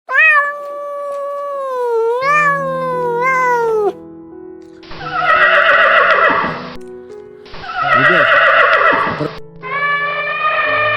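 A series of separate animal calls cut one after another over background music: a long, wavering pitched call first, then two harsher calls that start and stop abruptly, then another pitched call near the end.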